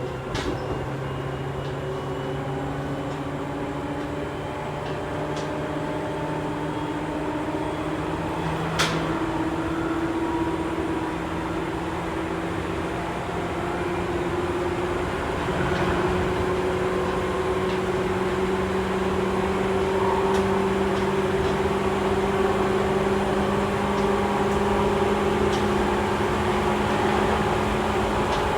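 Running sound of a Seibu 2000-series field-chopper-controlled electric train, heard inside the motor car: traction motor and gear whine rising slowly in pitch and growing louder as the train gathers speed, with one sharp click about nine seconds in.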